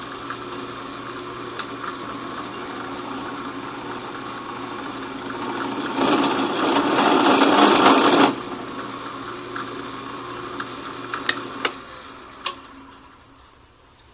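Drill press spindle running steadily, with a high-speed steel center drill cutting a chamfer into the gas port of a steel rifle barrel for about two seconds, from about six seconds in, a loud rough cutting noise. A few sharp clicks follow, then the motor winds down. The cut went poorly, which the machinist puts down to the work not being locked to the table and a probably dull high-speed steel center drill.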